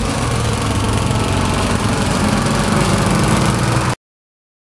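Walk-behind push lawnmower's small gasoline engine running steadily while cutting grass. It cuts off abruptly near the end.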